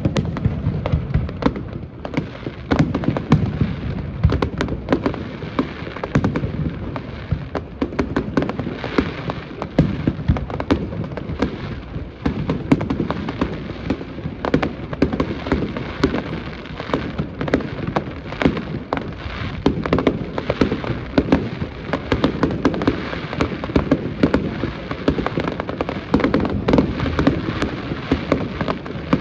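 Fireworks display: a continual dense barrage of bangs and crackling shell bursts over a deep rumble.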